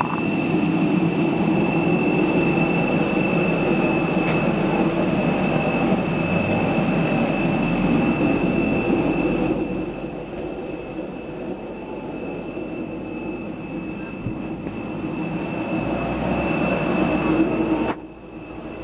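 Steady jet aircraft noise on the apron: a broad rumble with a constant high whine. It becomes suddenly quieter and muffled about a second before the end, once inside the aircraft cabin.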